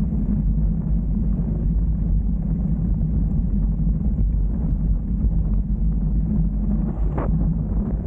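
Wind buffeting the camera microphone together with the mountain bike rolling fast over a rough dirt track: a steady low rumble. A single brief knock about seven seconds in, as the bike hits a bump.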